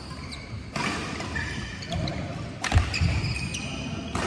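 Badminton rackets striking the shuttlecock during a rally: sharp cracks about a second in, near three seconds (the loudest), and again near the end. Short high squeaks from shoes on the synthetic court floor come in between, in a large hall.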